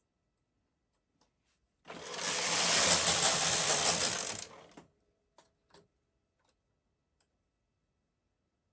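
Carriage of a Brother KH-970 knitting machine pushed across the needle bed to knit one row of a motif. It makes a rushing mechanical clatter lasting about three seconds, followed by a couple of faint clicks.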